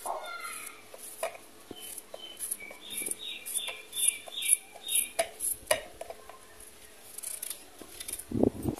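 A kitchen knife slicing through an apple in the hand, with sharp clicks and taps as the blade cuts and the pieces drop into a plastic bowl. A bird chirps a quick run of repeated notes in the background in the middle.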